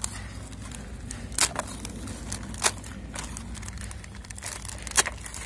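Plastic courier mailer being torn open by hand: crinkling and rustling of the plastic film, with three sharp crackles as it gives way, the loudest near the end.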